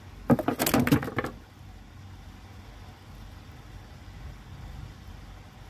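Clattering knocks from a plastic fishing handline spool being handled, a quick run of them lasting about a second near the start. A steady low rumble follows.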